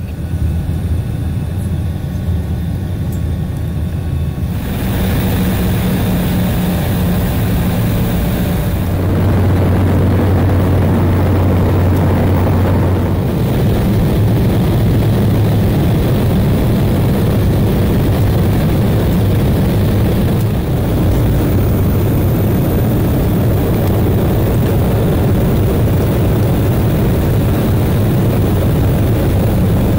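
Jet airliner cabin noise heard from a window seat: a loud, steady rush of engines and airflow over a low hum. It shifts abruptly a few times in the first dozen seconds, then holds steady.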